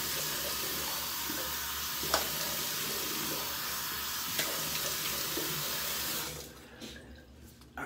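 Bathroom sink tap running steadily, with two brief splashes as water is splashed on the face, then turned off about six seconds in.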